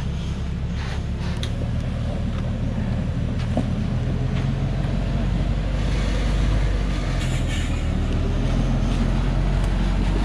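Diesel engine of a truck loaded with acacia logs, running steadily under load as it climbs a muddy forest track, a little louder from about six seconds in.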